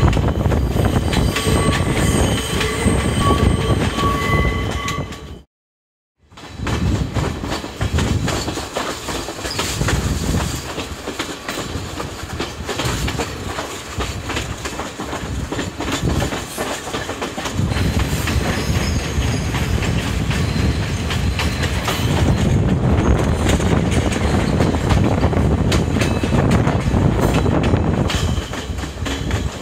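Passenger train running, heard from an open carriage window: wheels clattering over the rail joints over a low rumble. A steady high-pitched ringing tone sounds through the first five seconds. The sound cuts out for under a second about six seconds in.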